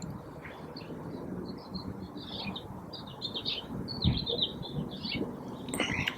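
Small birds chirping repeatedly over a low, steady background noise, with a brief low thump about four seconds in.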